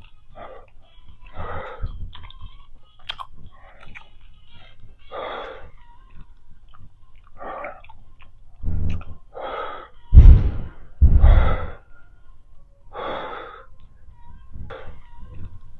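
A woman breathing hard with exertion while lifting dumbbells: a noisy breath every second or two. Three louder breaths, about nine to eleven seconds in, blow on the microphone with a low rumble.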